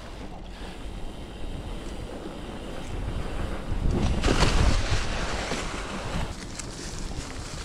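Mountain bike rolling along a trail covered in dry fallen leaves, with rustling from the tyres and wind rushing on the camera microphone; it grows louder about four seconds in.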